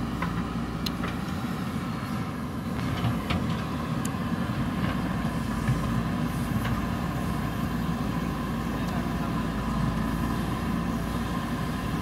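JCB backhoe loader's diesel engine running steadily under load while the rear backhoe arm digs, with a few faint clicks over it.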